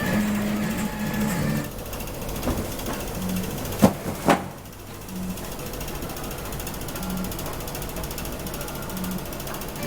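A mechanism clicking steadily, with a low hum that comes and goes. About four seconds in there are two sharp knocks, half a second apart.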